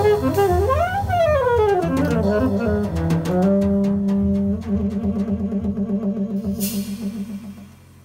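Jazz trio of saxophone, double bass and drums ending a ballad: the saxophone plays a quick rising-and-falling run, then the band settles on a held final chord that pulses, a cymbal splashes near the end, and the music dies away.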